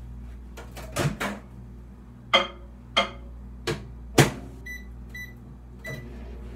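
Microwave oven being loaded and set: several knocks and clunks as the door and dish are handled, then three short keypad beeps near the end as the 45-second time is entered to melt butter. A steady low hum runs underneath.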